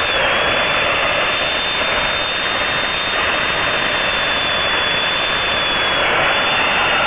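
Old Hitachi magnetic drilling machine running at full speed, its motor giving a high steady whine over a dense grinding noise as an ordinary 14 mm twist drill bit cuts into steel angle iron.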